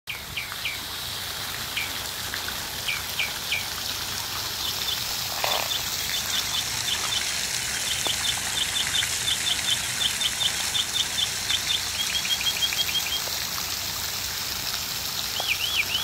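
Songbirds chirping and singing: scattered sharp down-slurred chirps, then a long run of quick repeated chirps, several a second, that tightens into a fast trill, over a steady hiss of fountain water splashing into the pond.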